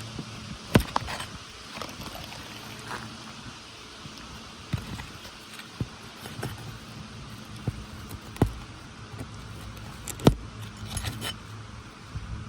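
Hand tools clicking and knocking against an asphalt roof shingle and its nails as the shingle is worked loose, in scattered sharp strikes with metal clinks, the loudest a little under a second in and about ten seconds in.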